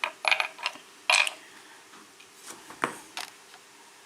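Small metal lock pins and parts clicking and clinking as they are handled. There is a quick cluster of clicks in the first second or so, then a few scattered single clicks.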